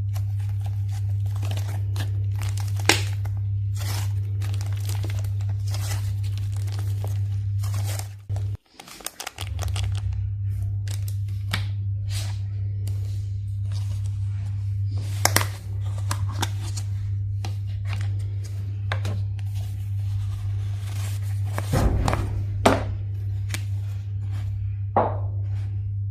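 Soft bread-dough slime squished and stretched by hand, giving many quick sticky clicks, pops and crackles, over a steady low hum that cuts out briefly about eight seconds in.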